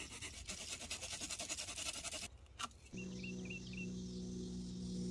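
A pocketknife blade scraping and shaving a branch in rapid short strokes for about two seconds, ending in a single click. Then a steady low chord of background music comes in, with a few short chirps over it.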